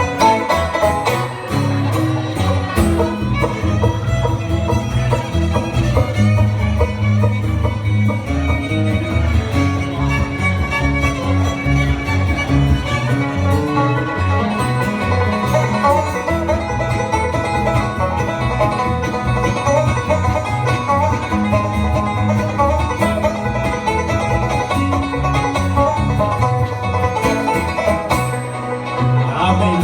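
Bluegrass band playing an instrumental break, led by fiddle and banjo over guitar.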